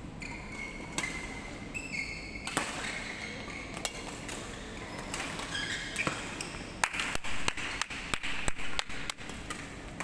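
Badminton rackets striking shuttlecocks in rallies: repeated sharp pings, coming thick and fast from about seven to nine and a half seconds in. Short high squeaks of court shoes are heard between the hits.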